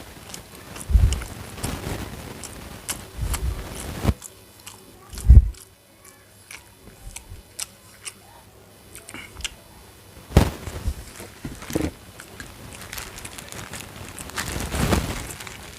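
A person eating close to the microphone: biting and chewing, with many small clicks and several low thumps, the loudest about five seconds in.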